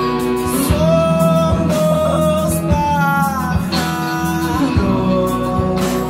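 A live indie rock band playing, with guitar, keyboard and drums; a voice sings a melodic phrase from about a second in until near the end.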